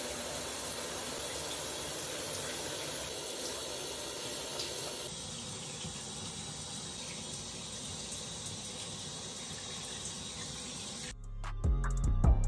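Running water from a shower, a steady hiss, changing slightly about five seconds in; near the end it gives way to music with a beat.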